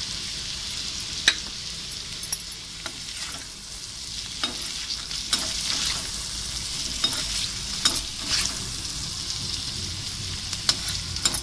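Cut amla (Indian gooseberry) pieces sizzling steadily in hot oil in a kadai. A perforated metal skimmer spoon stirs them, with sharp clicks and scrapes against the pan at irregular moments, the loudest about a second in.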